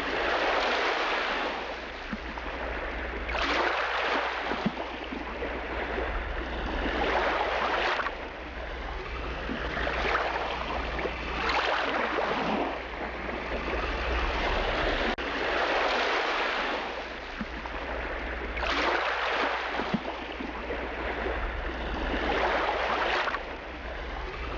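Sea water sloshing and splashing around a camera floating at the surface, surging in swells every two to four seconds, over a steady low rumble.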